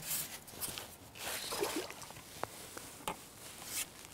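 Faint, scattered clicks and rustles of fishing tackle being handled, a few soft ticks over a quiet background.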